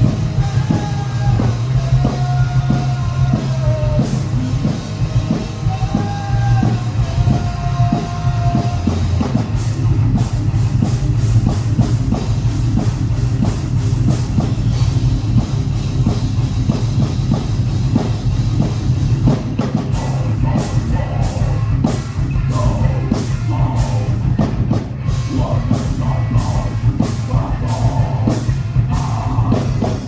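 Rock band playing live at full volume: electric guitars, bass guitar and a drum kit, with held guitar melody lines in the first third. From about two-thirds in the drums hit fast and even and a singer joins, until the song cuts off at the very end.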